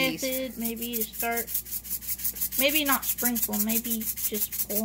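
Chocolate sprinkles rattling in a plastic shaker bottle shaken fast and evenly over a cake, about eight rattles a second. A voice hums short notes over the shaking.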